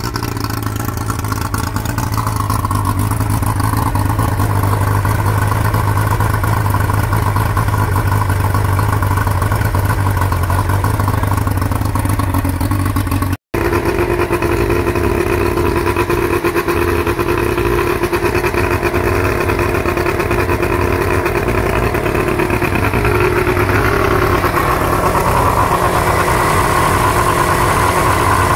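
Yamaha 115 hp two-stroke outboard running steadily on flush muffs, with a brief dropout about halfway through.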